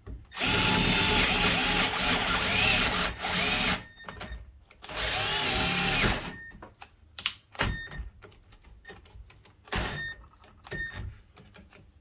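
Milwaukee M12 3/8-inch cordless drill/driver running at full speed, boring a large drill bit into a treated 2x4. It runs twice, for about three and a half seconds and then about a second, its pitch sagging and rising as the bit loads up; at full speed it doesn't cut well. A few light clicks and knocks follow.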